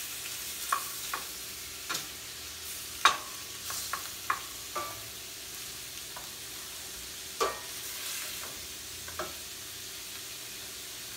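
Shrimp sizzling in butter in stainless steel skillets, cooking until they turn red. A spatula stirs them, knocking and scraping against the pan about ten times, loudest about three seconds in. The stirring stops after about nine seconds while the sizzle goes on.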